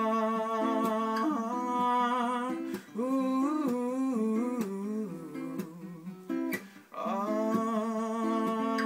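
A man singing with his acoustic guitar, drawing out the word "are" in long, bending notes, with the guitar plucked underneath.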